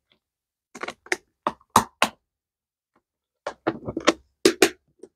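Clear hard-plastic storage case being handled and closed over a banknote: two runs of short, sharp plastic clicks and taps, one about a second in and another near the end.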